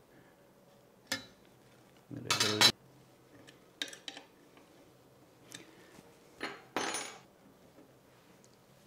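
Metal clinking and knocking as a steel rule and a hex key are handled against the aluminium extrusion frame of a CNC router kit while it is squared up and its screws tightened. Scattered short clinks, the loudest a short clatter about two and a half seconds in.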